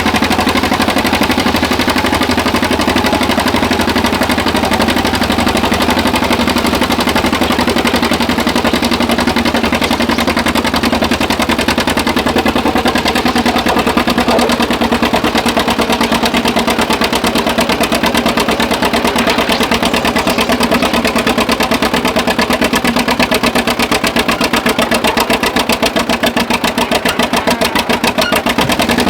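Tractor engine running loud and steady under load on a pull, with a rapid even exhaust beat.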